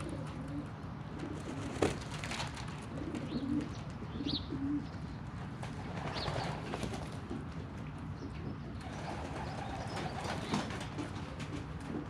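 Domestic pigeons cooing in several short, low phrases, mostly in the first half, with a single sharp tap about two seconds in. Later come rustling, splash-like noises as the birds bathe and flutter in a shallow water tray.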